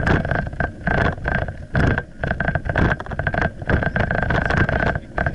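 Mountain bike and its mounted action camera rattling and rumbling over brick paving while riding, with wind buffeting the microphone; irregular knocks and a high whine that comes and goes.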